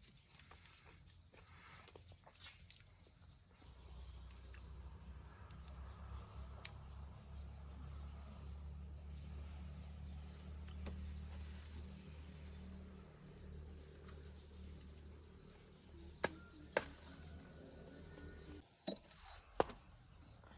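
Insects chirping: a steady high whine with short chirps repeating at an even pace, over a low rumble that builds after a few seconds and fades near the end. A few sharp clicks near the end.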